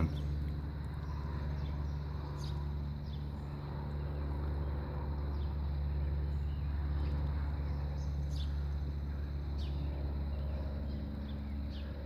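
A steady low hum of several fixed pitches, with a few faint short chirps scattered over it.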